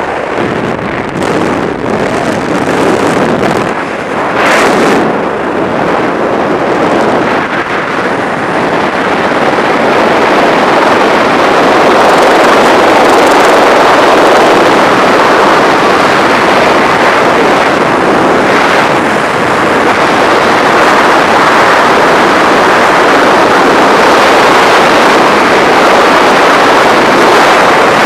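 Freefall wind rushing over the microphone, a loud, steady roar of noise that builds over the first ten seconds or so as the jumper leaves the plane and speeds up, then holds level.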